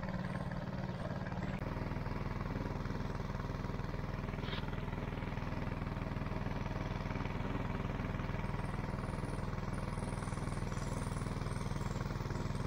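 Small boat's motor running steadily at trolling speed, an even low hum that does not change in pitch.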